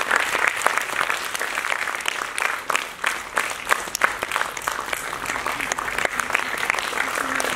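Audience applauding: many hands clapping without a break.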